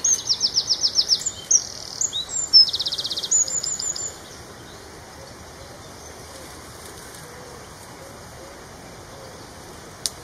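A small songbird sings one loud, high-pitched burst of song lasting about four seconds: a run of rapid repeated notes, then a very fast trill. A single short click comes near the end.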